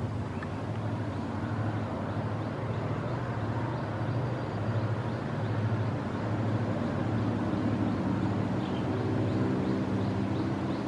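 Diesel locomotive D.4530 approaching with an express train: a low, pulsing engine rumble that grows slowly louder, its engine note becoming clearer near the end.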